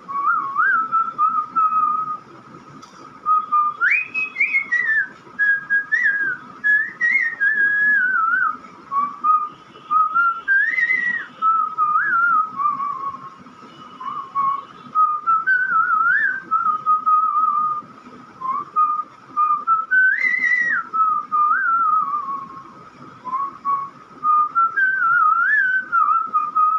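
A person whistling a melody by mouth: one clear tone that steps and slides up and down through the tune, in phrases broken by short pauses.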